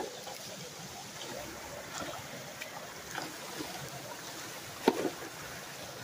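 Water running and trickling steadily, with scattered light splashes and ticks. About five seconds in comes one sharp, louder splash as a long-handled tool is driven into the water against the beaver debris at the culvert mouth.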